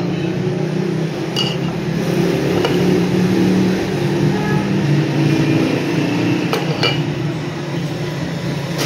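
A few light metal clinks as a motorcycle drum-brake plate is handled against the spoked wheels, over a loud steady low hum.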